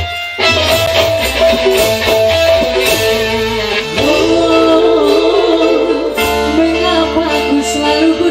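Dangdut band (orkes melayu) playing a song, with guitar over a steady bass beat; a sung melody with a wavering pitch comes in about four seconds in.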